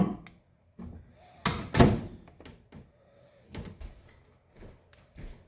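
A string of knocks and clunks from kitchen things being handled and set down, the two loudest coming close together about a second and a half in, with lighter knocks after.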